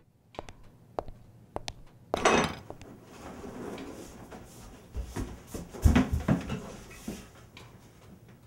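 A scatter of sharp knocks and clicks, a brief scraping rush a little after two seconds in, then heavier thumps around five and six seconds in: objects being knocked and handled in a small room.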